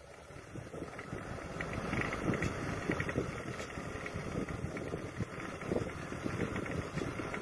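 Engine of a homemade wood-hauling truck running as the loaded truck comes down a dirt track, growing louder over the first couple of seconds and then holding steady.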